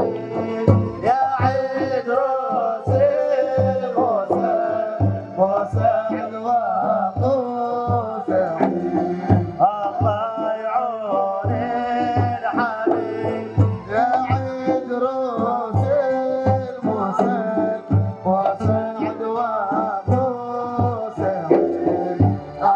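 Dhofari folk music: hand drums beat a steady rhythm under a wavering melody.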